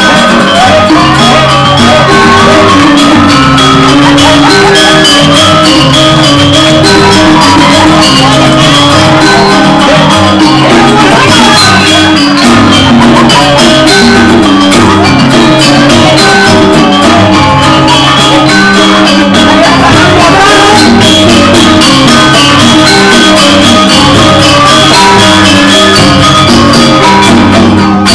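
Lively Balinese gamelan music for joged dancing, with repeating melodic patterns over a steady beat, and shouts over the music.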